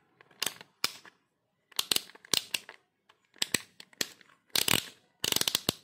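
Rotary selector dial of a handheld digital multimeter being turned, clicking through its detents in about six quick bursts of sharp clicks. The meter is being switched from a voltage range to a current range.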